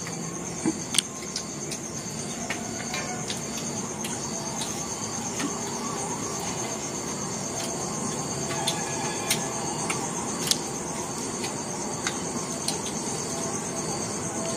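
Insects trilling steadily at a high pitch, with occasional light clicks from people eating.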